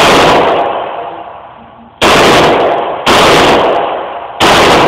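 Bersa Thunder .380 ACP semi-automatic pistol firing four single shots, spaced unevenly: one right at the start, then about two, three and four and a half seconds in. Each shot is followed by a long echo from the indoor range.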